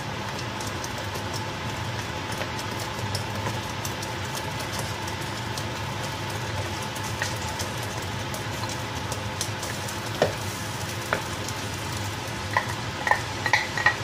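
Tomato sauce sizzling and crackling steadily in a frying pan as minced meat is scraped into it. Near the end a wooden spoon knocks and clinks several times against the container and pan.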